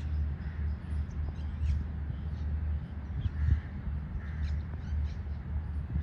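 Low, uneven rumble of outdoor background noise, with faint, short bird chirps scattered through it.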